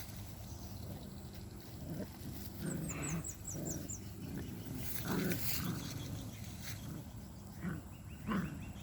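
A puppy giving a string of short, low growls and grunts, several in a row with pauses between them, the loudest about five seconds in and near the end.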